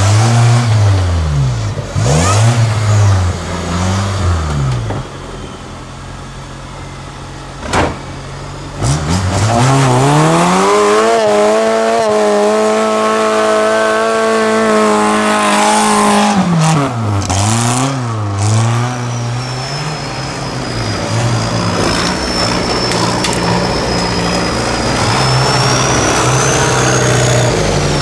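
Off-road 4x4 race vehicle's engine revving hard in repeated up-and-down bursts. About a third of the way in it climbs and holds at high revs for several seconds, then drops back to uneven mid revs. A thin high whine rises slowly through the later part.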